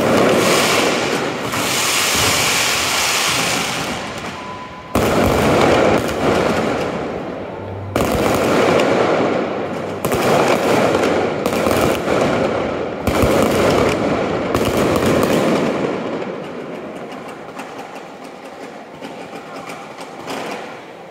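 Fireworks display: aerial shells bursting in a run of sharp booms, one every one to three seconds, each followed by a long crackling hiss that dies away. The bursts thin out and the sound fades over the last few seconds.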